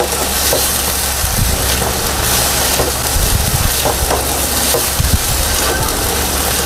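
Minced pork sizzling in a non-stick pan as a spatula stirs it, with a few light knocks of the spatula against the pan. The pork is nearly cooked through and drying out.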